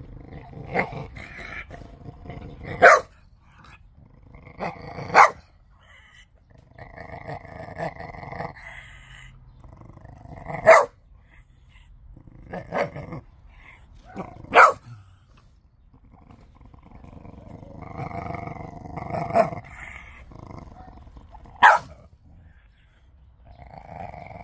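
Chow chow growling in long rough stretches and snapping out short, sharp, loud barks every few seconds, warning off another dog that has come close.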